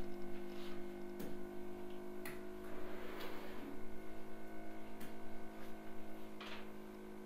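A steady electrical hum with a few sharp clicks scattered through it, about four in all. The clicks come as tools are clicked on screen in whiteboard software.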